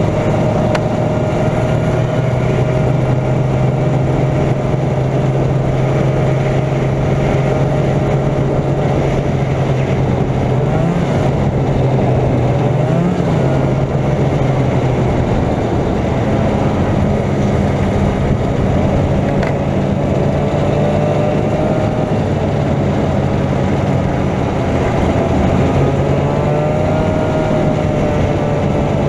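Arctic Cat Jag 440 Deluxe snowmobile's two-stroke engine running steadily, with a couple of brief small rises in engine speed.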